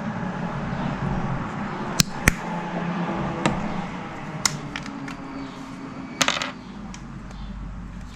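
Several sharp clicks and taps of small hard objects, irregularly spaced, with a quick run of clicks about six seconds in, over steady background noise.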